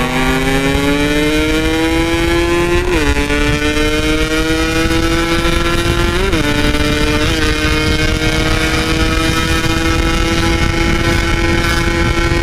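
Two-stroke Yamaha RX-King 144 engine pulling under acceleration. Its pitch rises steadily, then drops sharply at a gear change about three seconds in. After two brief wobbles in pitch a few seconds later, it holds steady revs.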